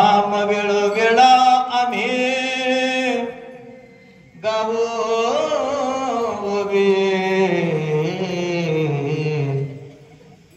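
A man's solo voice chanting a devotional verse into a microphone in two long drawn-out phrases, holding notes and sliding between pitches, with a short pause about four seconds in.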